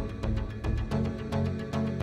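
Background music with a steady beat: sharp percussive hits about four times a second over sustained bass notes.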